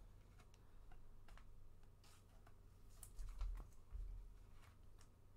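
Faint, irregular light clicks and ticks of trading cards and a clear plastic card sleeve being handled.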